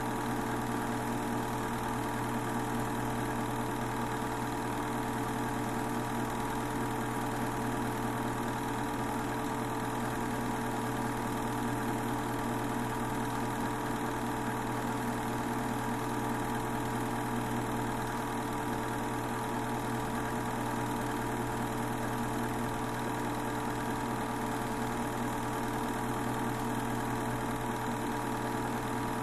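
Film projector running: a steady, even mechanical hum and whirr of its motor and film transport that holds unchanged throughout.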